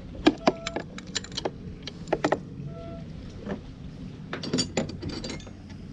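Steel wrenches and a ratchet wrench clinking and clicking irregularly against each other and the generator's mounting bolts, a few strikes ringing briefly.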